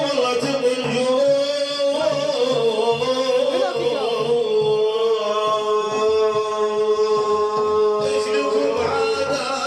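A man's solo voice singing a drawn-out, ornamented line of an Arabic religious praise chant (madih), the pitch wavering at first and then held on one steady note for several seconds before a new phrase begins near the end.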